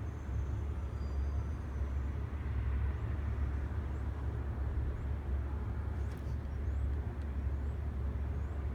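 Engine of the crane lifting an HVAC unit, running steadily with a deep, even rumble.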